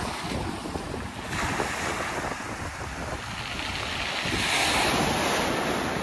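Surf from a rough sea breaking and washing over a pebble shore, with wind rumbling on the microphone. The wash swells to its loudest about four to five seconds in.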